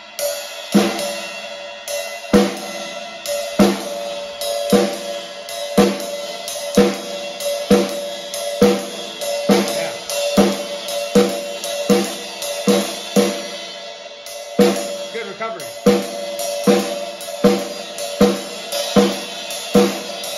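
Acoustic drum kit played at a slow, steady beat: a strong drum stroke about once a second, each struck together with a cymbal, with cymbal ringing between them.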